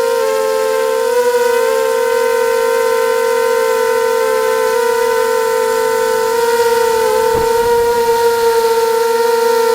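Background music: one long note held on a single pitch, with overtones and slight wavers now and then.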